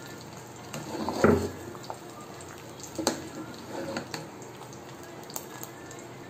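A ladle stirring runny payasam in a metal pressure-cooker pot: soft liquid sloshing with a few light clinks and knocks of the ladle against the pot.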